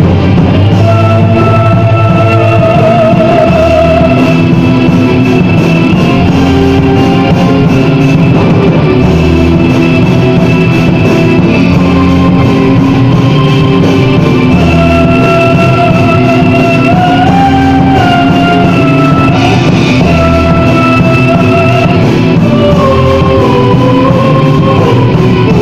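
Gothic metal band playing loud and dense, guitars and drums under a melody of long held notes, some with vibrato.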